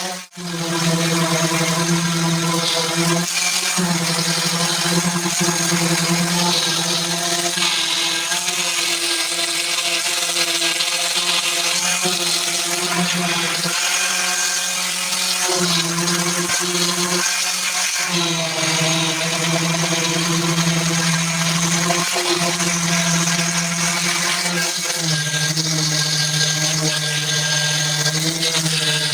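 Power sander running against a car body panel: a steady motor hum with a high abrasive hiss, dipping and shifting briefly every few seconds.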